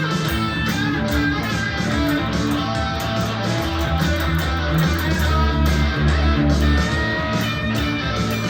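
Guitar jam: guitar notes played over held low bass notes, keeping a steady rhythm.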